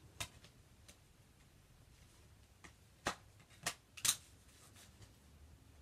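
Discs and their case being handled: about six short, sharp clicks and taps, the loudest three coming close together between three and four seconds in.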